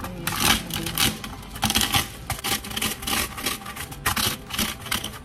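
Roasted mung beans crackling and rattling under a can rolled over them on a metal baking sheet, a dense run of sharp, irregular clicks as the husks crack loose.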